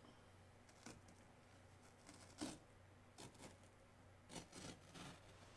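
Faint, scattered rustles and scrapes of automotive carpet being handled and worked by hand in a truck's front footwell, the sharpest about two and a half seconds in, over a low steady hum.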